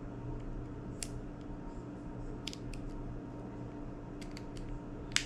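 Scattered small, sharp clicks and ticks from handling the iPod classic's small parts and tools during reassembly, the loudest near the end, over a steady low electrical hum.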